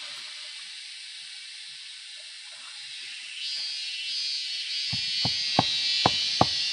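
Steady high-pitched hiss that swells about three seconds in. Near the end, sharp wooden knocks begin, about three a second, as a piece of bamboo is struck.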